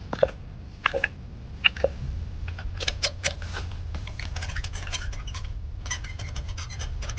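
Hand-tool work on a car engine while a spark plug is unscrewed: a few sharp metallic clicks, then a run of rapid fine ticking from about three seconds in, like a ratchet wrench being worked.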